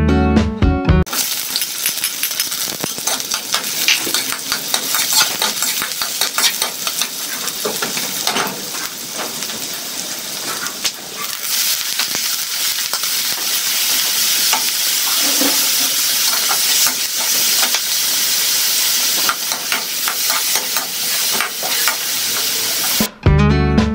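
Chopped garlic and onion sizzling in hot oil in a metal wok, stirred and scraped with a metal spatula. About halfway through, raw ground pork goes into the wok and keeps sizzling as the spatula scrapes and turns it.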